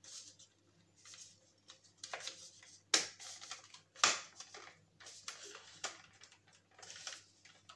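Handling of a hair dryer's plastic casing during reassembly: scattered rustles and scrapes with two sharp clicks about three and four seconds in.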